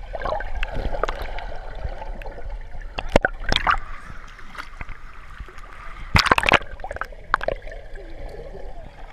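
Water sloshing and gurgling in a water-park lazy river around people riding tubes, with a few sharp splashes, the loudest a short burst about six seconds in.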